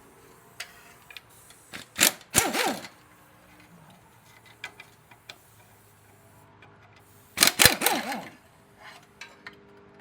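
A pneumatic tool, an air impact wrench or air ratchet, run in two short bursts about five seconds apart, each one winding down in a falling whine, with light clicks of sockets and tools between.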